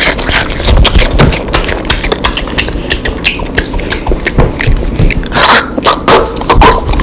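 Crunchy food being bitten and chewed right at the microphone: a dense, irregular run of crisp crunches.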